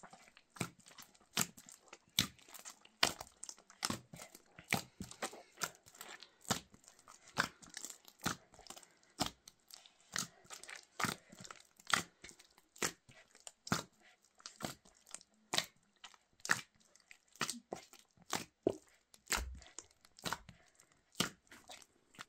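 Hands kneading a large mass of bread dough in a metal basin. Each push makes a short, sharp sound, in a steady rhythm of a little more than one a second.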